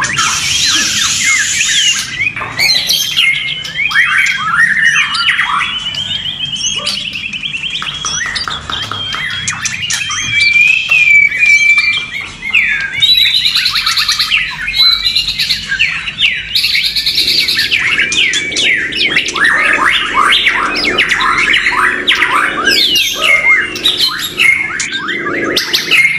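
Several white-rumped shamas singing at once: a dense, unbroken overlap of fast chirps, whistles and gliding notes. Three short harsh, hissy calls cut through, at the start, about halfway through and a few seconds later.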